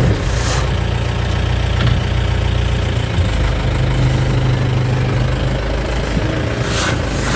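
A vehicle engine idling steadily, an even low hum.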